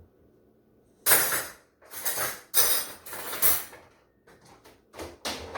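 Dishes, pots and pans clattering as they are put away: four loud sharp crashes between about one and three and a half seconds in, then a few lighter clatters near the end.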